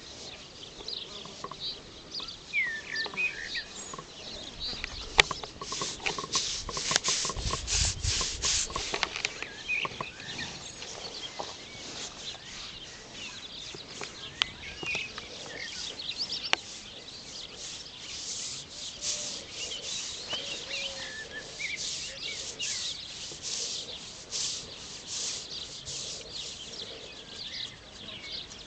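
Scratching and rubbing on a horse's coat in quick repeated strokes, coming in runs, with a couple of sharp clicks. Birds chirp in the background.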